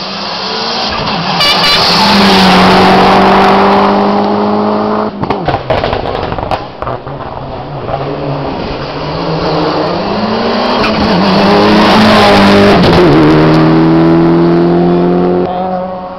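Hillclimb race car engine at full throttle, approaching and passing, its pitch breaking and shifting with gearchanges about five to seven seconds in. It then rises again as the car pulls away up the road, and fades near the end.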